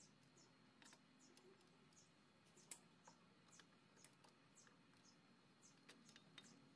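Near silence: faint, high chirps repeating about twice a second, with a few scattered sharp clicks, the loudest a little under three seconds in.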